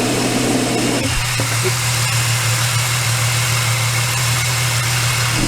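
Supercharged 3.8-litre V6 idling, heard through a lever bar held on the bolt of the double idler pulley, picking up that pulley's bearing: a steady hum under a rushing noise, which the owner judges bad enough that the pulley has to be replaced. The sound changes about a second in.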